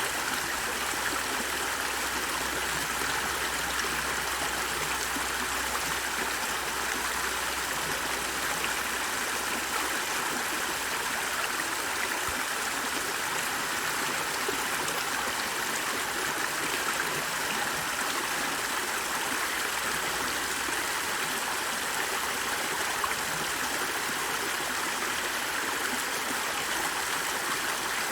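Water flowing in a stream, a steady, even sound without pauses or changes.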